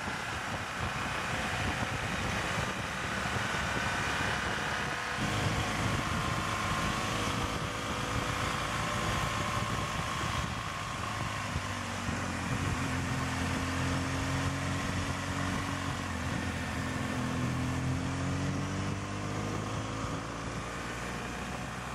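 Motorcycle engine running while riding, with wind and road noise. The engine note gets louder and fuller about five seconds in, and its pitch rises and falls gently later on as the speed changes.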